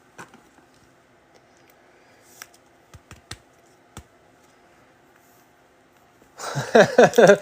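Trading cards being handled on a table: scattered light clicks and taps as cards are sorted and set down. About six and a half seconds in, a much louder voice-like sound begins.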